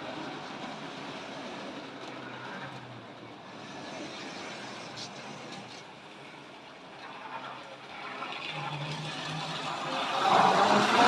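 Tri-ang OO-gauge model train running slowly along the track into a siding: the locomotive's small electric motor whirring and the wheels running over the rails, growing louder about ten seconds in.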